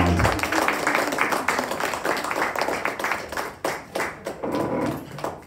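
Small audience applauding, many hands clapping quickly, dying away near the end.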